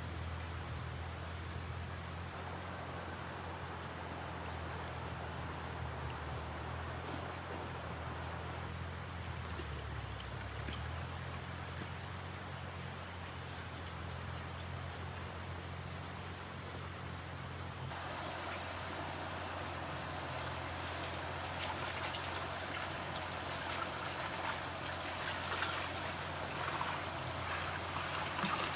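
Water trickling and splashing over a steady low hum, with trains of short, high chirping calls repeating in the background. About two-thirds of the way through, the water grows louder and busier, with lots of small splashes.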